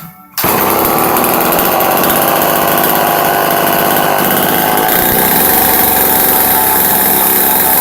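Homelite XL12 54cc two-stroke chainsaw engine catching about half a second in, then running steadily.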